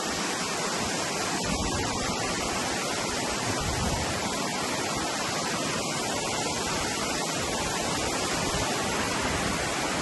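Steady rush of water from a waterfall and a stream tumbling over rocks.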